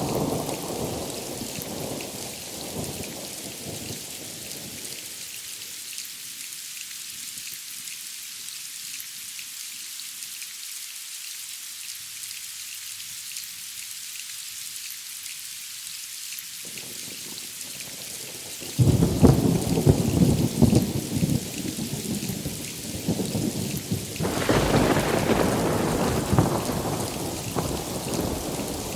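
Steady rain hissing, with thunder: a rumble dying away over the first few seconds, a sudden loud thunderclap about two-thirds of the way in that rolls on for several seconds, and another long rumble swelling up near the end.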